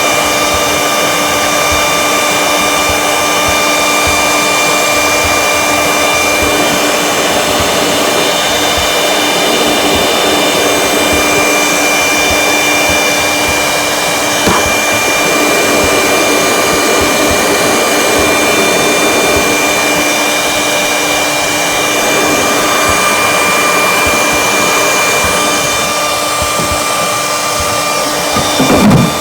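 Electric heat gun running steadily: a continuous blowing rush with a steady motor whine, used to heat a cap so that it can be loosened. A brief louder clatter comes near the end.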